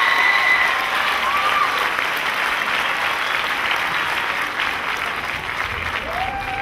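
Theatre audience applauding at the end of a dance number, with a few high shouts in the first second or so; the applause slowly dies down.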